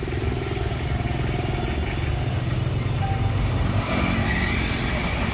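Small vehicle engine idling steadily with a fast, even pulse; about four seconds in a second, higher-pitched engine joins as a motorcycle passes on the road.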